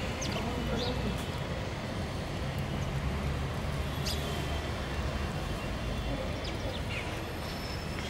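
Steady low rumble of distant traffic, with a few short, high chirps of house sparrows scattered through it.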